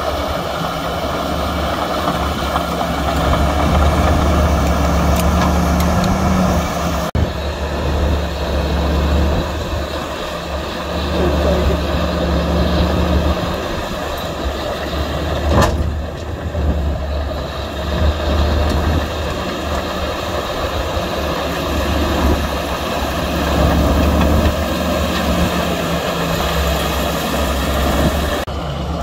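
Heavy diesel engines of earthmoving machinery, bulldozers and dump trucks, running steadily, with a single sharp clank about halfway through.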